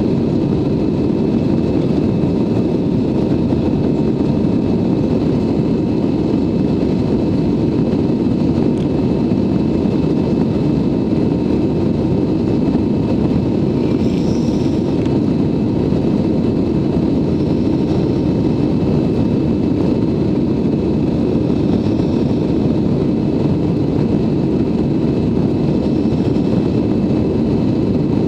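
Steady cabin noise inside an Airbus A320-214 in flight, heard from a window seat over the wing: a constant rush of airflow with the drone of its CFM56 engines.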